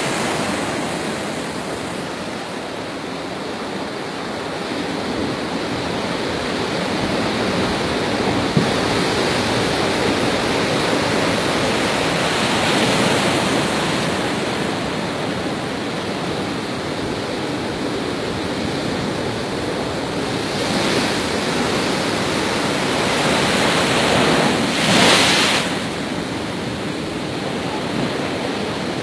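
Cyclone-driven storm surf breaking against a pier and the shore: a continuous rushing wash of waves that swells and eases, with a brief louder surge near the end.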